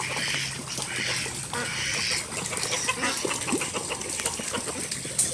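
Ducks quacking, about three raspy quacks in the first two seconds, over the steady hiss of heavy rain falling.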